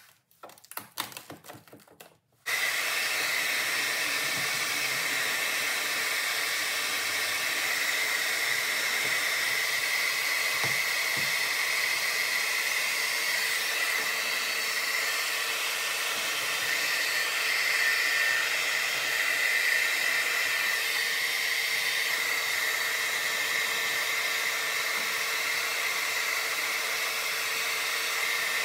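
A handheld hair dryer switches on about two and a half seconds in and then runs steadily, a hiss of rushing air with a high whine, heating the carbon-fiber vinyl wrap on the door's handle trim. Before it starts, a few light clicks from handling the vinyl.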